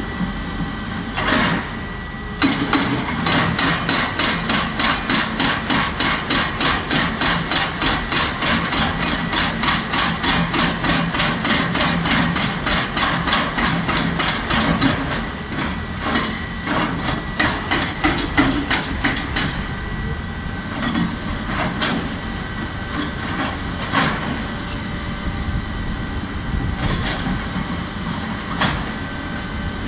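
Hydraulic breaker on a JCB tracked excavator hammering rock: a fast, even run of blows starting about two seconds in, turning slower and more irregular in the second half, over the excavator's running engine.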